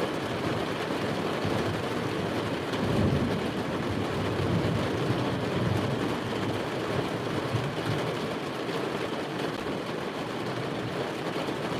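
Heavy rain falling on a car's roof, heard from inside the cabin, with a low rumble of thunder swelling about three seconds in and dying away by about eight seconds.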